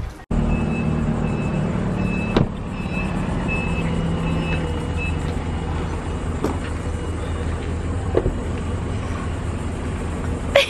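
A forklift's engine running with a steady low drone while its reversing alarm beeps, about two to three beeps a second, for about three seconds. A few sharp knocks stand out over it, the loudest near the end.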